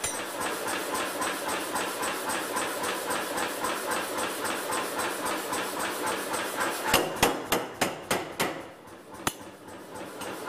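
Air-powered power hammer running, its top die striking rapidly several times a second as a tong blank is forged on the tong-making die. About seven seconds in comes a run of heavier, louder blows, then a quieter lull broken by one sharp strike.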